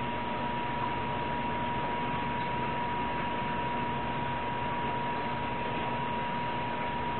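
Steady hiss with a constant high-pitched tone over it and a fainter low hum, with no distinct events.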